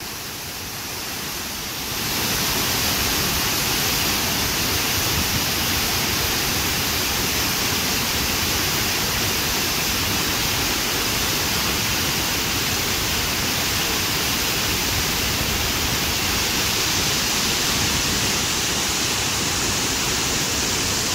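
Great Falls of the Passaic River: water pouring over the falls, a steady, even rush of noise that steps up to a louder level about two seconds in.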